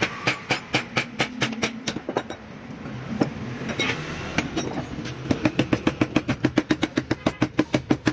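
Rapid sharp knocks, an irregular run at first, then from about five seconds in a steady rhythm of about six a second, over a low steady hum.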